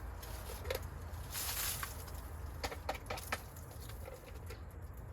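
Plastic handling sounds from a Black & Decker Dustbuster handheld vacuum being opened to clean its filter. There is a brief rustle, then a quick run of light clicks and taps about three seconds in.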